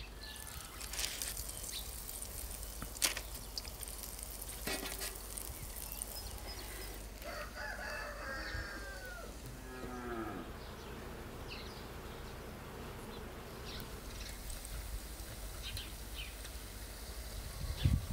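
A cow mooing once, a long pitched call that falls at the end, about eight seconds in. A few sharp clicks come before it.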